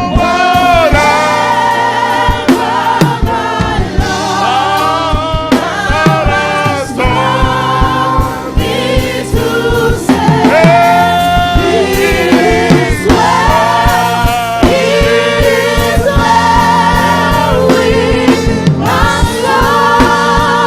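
A gospel song sung by a lead voice and a church congregation, with long held notes that waver with vibrato over steady instrumental backing.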